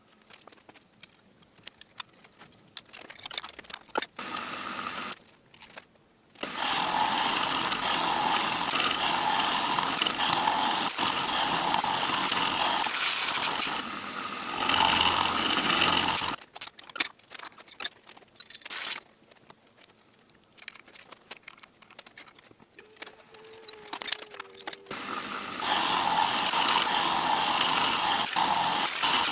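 A manual machine tool (lathe or milling machine) cutting steel: it runs steadily for about ten seconds, stops, then starts again near the end. Light metallic clinks and handling knocks fill the stretches between.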